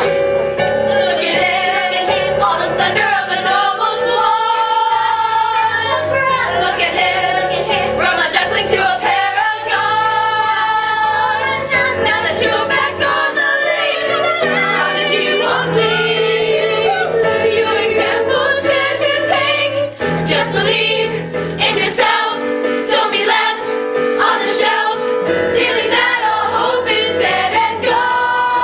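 A stage musical number: several voices singing together in chorus over instrumental accompaniment with sustained bass notes.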